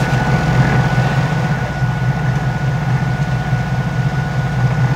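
A sailboat's inboard diesel engine running steadily, a low even hum with a thin steady whine above it.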